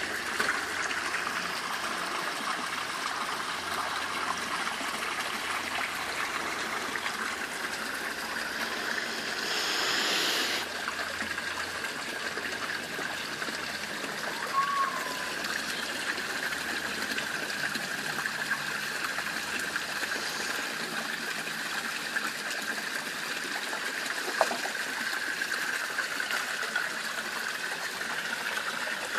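Steady splashing of water falling from an outlet pipe into a garden fish pond, with a brief louder rush of noise about ten seconds in.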